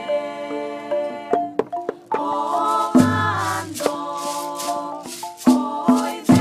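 Colombian folk music with a sung melody over maracas. About three seconds in, a fuller section with a strong bass comes in, and the shaker strokes become regular.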